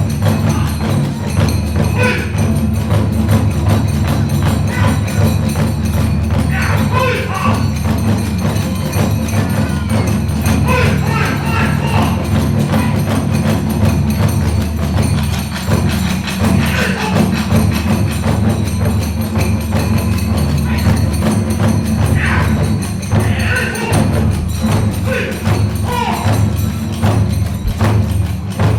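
Kagura hayashi ensemble playing dance music: big ōdaiko drum and small kodaiko drums keeping a steady driving beat, tebyoshi hand cymbals clashing, and fue bamboo flute phrases over the top.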